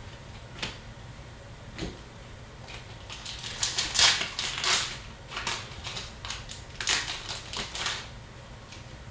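Hockey card packs and cards being handled: two light clicks, then a run of crinkling and snapping from about three seconds in to about eight seconds, as wrappers are torn open and cards are handled.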